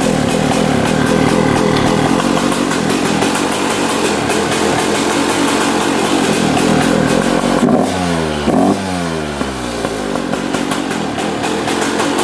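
Honda CR125's single-cylinder two-stroke engine running, freshly fitted with new crank seals, with two quick throttle blips about eight seconds in that fall back to a steady run.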